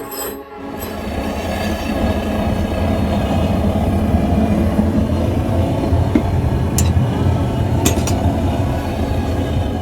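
A loud, steady rumbling roar that builds over the first couple of seconds and eases off near the end, with a few sharp clicks partway through, over quiet background music.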